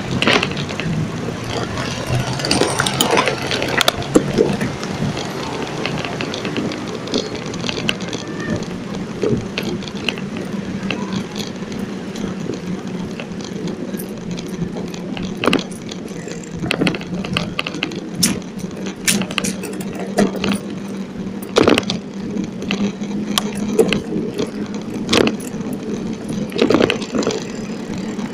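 Bicycle rolling over tiled paving and asphalt, with frequent sharp rattles and clicks as it goes over the bumps, over a steady background of street noise.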